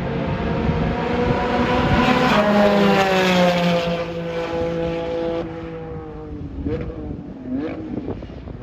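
Porsche 718 Cayman GT4 RS's 4.0-litre flat-six running hard through its exhaust, which has had a catalytic converter removed and its pipe widened from 2.75 to 3 inches. The revs climb to the loudest point about two to three seconds in, then fall and drop back about five seconds in, with a couple of short rev blips near the end.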